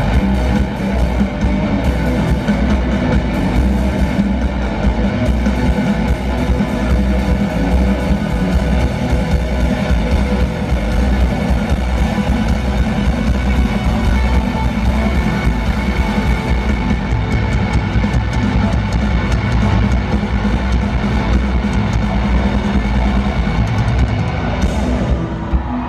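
Rock band playing a loud live jam, electric guitars over a driving drum kit, heard from the arena crowd. The sound thins and dips briefly near the end.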